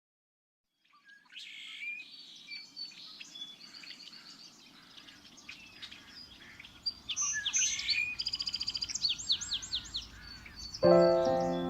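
Several songbirds singing, fading in about a second in, with a fast run of repeated chirps in the second half. Near the end, instrumental music enters with a sustained chord.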